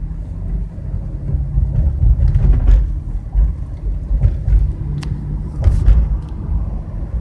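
Low, steady droning hum and road rumble inside a 2013 Chevrolet Impala's cabin while driving. The owner takes the hum, which rises with road speed, for a bad front wheel bearing.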